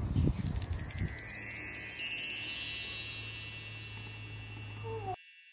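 Chimes struck in a quick upward run: many high tones ringing together and slowly fading, cut off suddenly about five seconds in. A low rumble sits under the first second.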